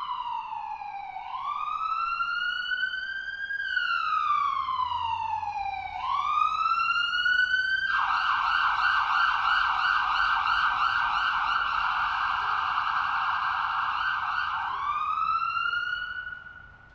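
Electronic emergency siren wailing in slow sweeps down and up, switching about halfway through to a rapid yelp for several seconds, then one last rising wail that fades out near the end.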